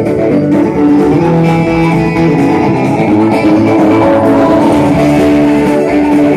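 Live band playing loudly, with guitars to the fore.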